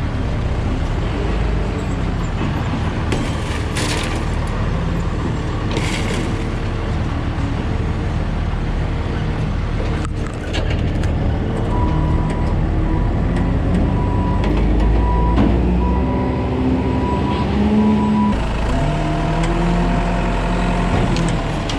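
Motor vehicle driving, its engine and road noise heard from inside the cab as a steady low rumble; a thin steady high whistle joins about halfway through.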